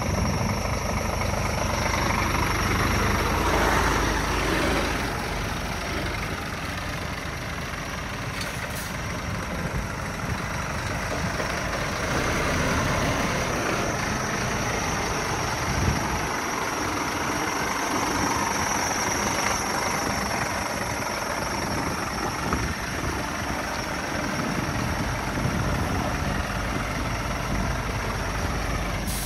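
Scania R450 tractor unit's 13-litre inline-six diesel idling steadily.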